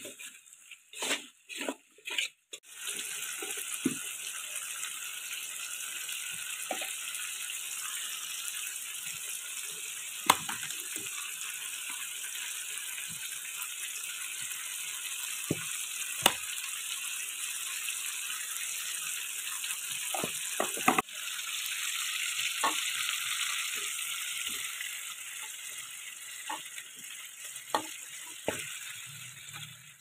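Tomato wedges frying in hot oil in an aluminium wok: a steady sizzle that starts about two and a half seconds in, after a few short sounds of the pieces going in, with a few sharp clinks of a metal spatula against the pan.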